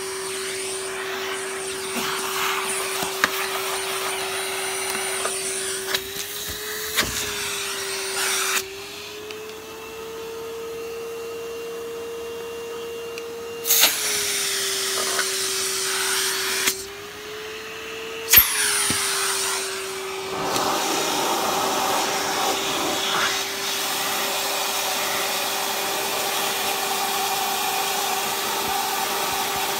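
Vacuum cleaner running with a steady motor whine and the rush of air through its nozzle, with small clicks and knocks as the nozzle works inside a machine's body. Twice the nozzle seals off: the air rush drops and the motor pitch rises for a few seconds, then a sharp clack as the seal breaks and the airflow returns.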